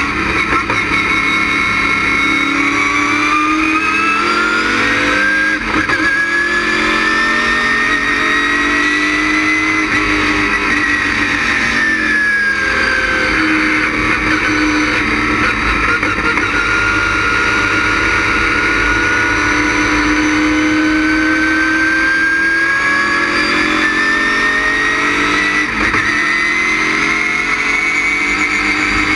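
GM LS6 V8 of a GTA stock car running hard at speed, its pitch climbing under acceleration, dropping sharply about four and again about twelve seconds in, then holding steady and rising again near the end.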